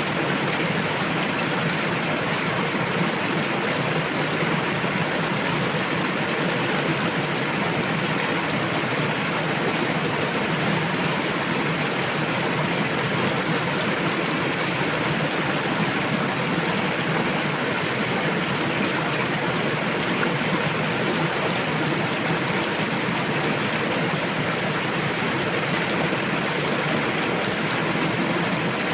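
Fast-flowing river rushing steadily over rocks, a dense even hiss of moving water.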